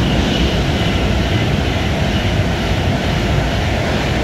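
Passenger train running through the station without stopping: a loud, steady rush and rumble of wheels on rail, with a faint high whine over it.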